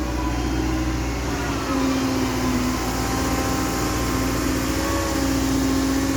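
Caterpillar M315F wheeled excavator's diesel engine running steadily under work, with a higher whine that steps in pitch a few times.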